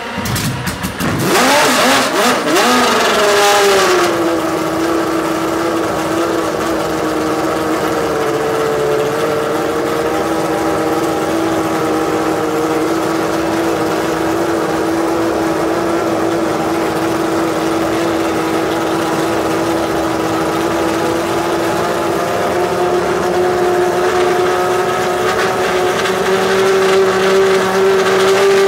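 The Honda V10 of a McLaren MP4/5 Formula One car starting up. It catches about a second in and revs up and down for a few seconds, then settles into a steady idle. The idle creeps up slightly in the last few seconds.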